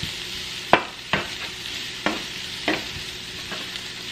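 Diced onion sizzling in hot sausage grease in a skillet, with a steady frying hiss. A knife blade stirs it, scraping and tapping against the pan with several sharp, irregular clicks.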